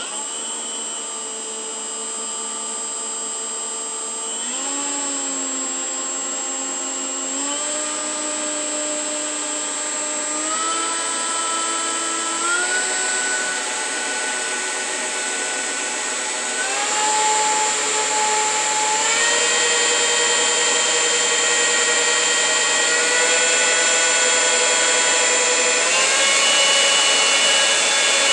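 Makita 18-volt brushless cordless leaf blower switching on abruptly and running with a high motor whine and rushing air. Its pitch steps up in several stages as it is sped up, and it grows louder.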